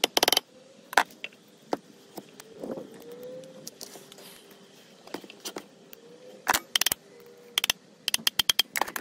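Sharp metallic taps from a hammer striking a center punch against the blower motor shaft in the hub of a plastic squirrel-cage fan. A few quick taps come right at the start and single ones about a second and two seconds in. A rapid run of taps begins about six and a half seconds in.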